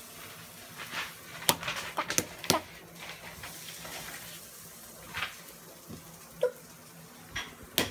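Light taps of a felt-tip marker dabbing on paper on a table, a few scattered clicks over several seconds, over a faint steady hum.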